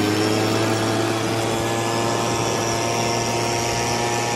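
Gas-powered Stihl handheld leaf blower running steadily at high throttle, blowing out a tractor's radiator.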